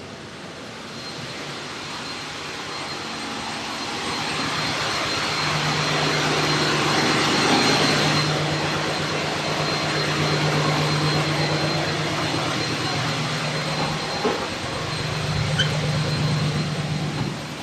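Steady machinery noise in a diesel-electric ship's machinery spaces: a broad rush with a low hum and a thin high whine. It grows louder over the first several seconds, stays loud, and eases off at the end.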